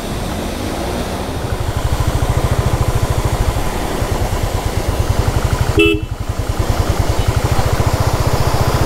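Motorcycle engine running with an even low beat that grows louder about a second and a half in, as the bike rides through a shallow stream crossing, with the rush of a waterfall behind it. A vehicle horn gives one short toot about six seconds in.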